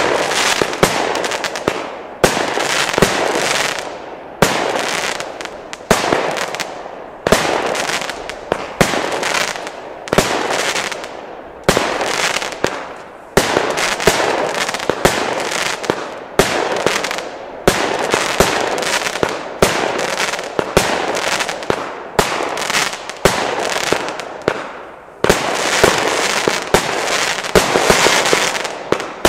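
51-shot Nico Power Unit consumer fireworks battery firing shot after shot, about one a second. Each shot is a sharp bang followed by a crackling burst that fades before the next.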